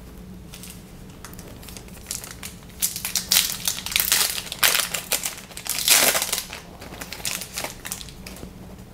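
Crackling and crinkling of a trading card pack wrapper being crumpled and torn open by hand, in a run of rustling bursts from about three seconds in, loudest around the middle.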